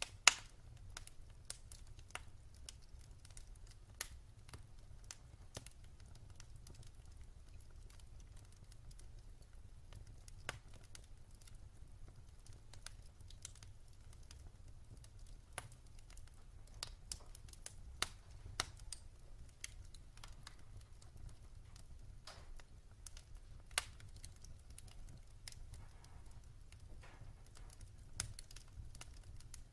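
Wood fire crackling in a fireplace: scattered sharp pops and snaps, a sharp pop just after the start and a cluster around the middle, over a low steady rumble.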